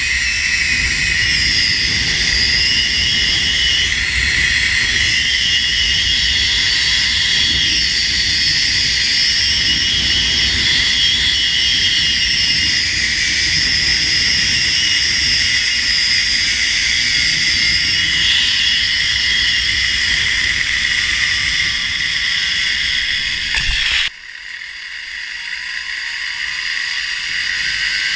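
Zipline trolley pulleys running along a steel cable, a steady high whine over wind rumble on the microphone. About 24 s in it drops off suddenly, then builds back up steadily as the trolley picks up speed again.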